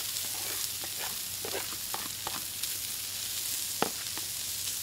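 Corn kernels and parboiled potatoes sizzling on a hot flat-top griddle: a steady hiss with a few short clicks, the sharpest near the end.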